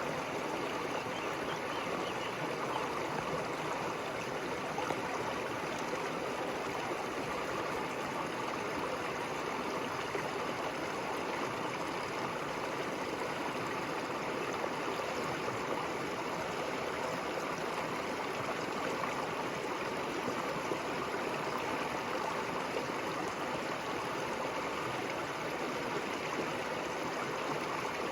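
Steady rushing and babbling of river water flowing over stones.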